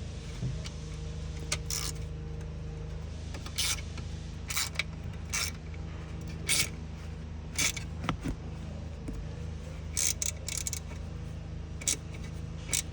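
Hand tools tightening the bolts of a seat counterweight into a truck seat frame: short metallic clicks and rattles, roughly one every second, over a steady low hum.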